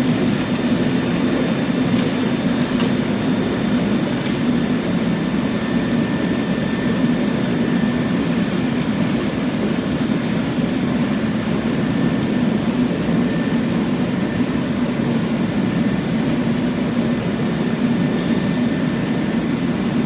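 Husqvarna concrete floor grinder fitted with bush hammer plates, running steadily as it works a concrete slab: a constant, even grinding drone.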